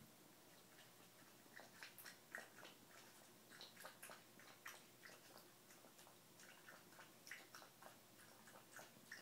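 Faint, irregular small clicks and ticks, a few a second, from a Chihuahua moving about and working at the mat inside its mesh pen.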